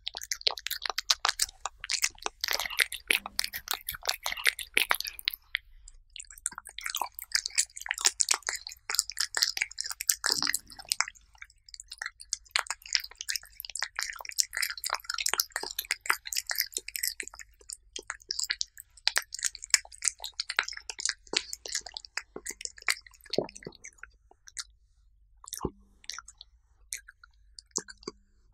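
A cat eating soft chicken breast puree close to a microphone: rapid, wet chewing and mouth clicks in dense runs, with a short pause about five seconds in. The clicks thin out near the end.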